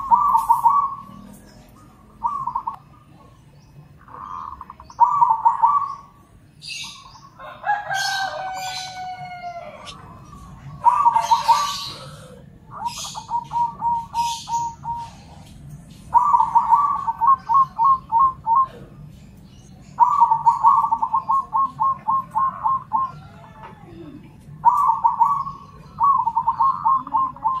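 Zebra doves (perkutut), local and crossbred birds, cooing in answer to one another: repeated phrases, each a short note followed by a fast stuttering trill of about five notes a second. Between about 7 and 12 seconds, higher chirps and a falling squeaky call from another bird.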